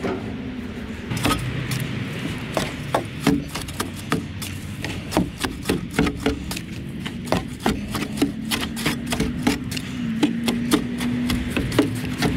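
Steel shovel digging and scraping into loose sandy soil, an uneven string of sharp scrapes and chops. A low steady hum runs underneath, clearest in the second half.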